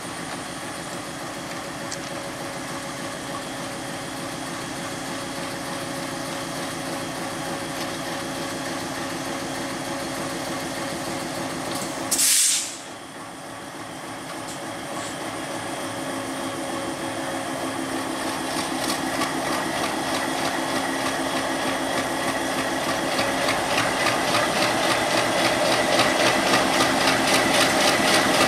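WDM-3A diesel-electric locomotive's ALCO 16-cylinder engine running as it approaches slowly, growing steadily louder. A short, loud hiss about twelve seconds in is the loudest moment, and the engine's pulsing beat becomes more distinct in the second half as it draws close.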